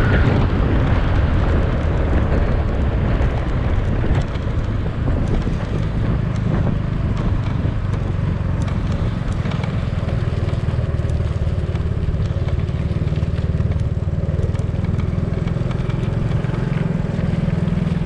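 Motorcycle engine running steadily at low road speed, with tyre and wind noise and scattered light clicks and rattles over rough pavement; it eases slightly about four seconds in.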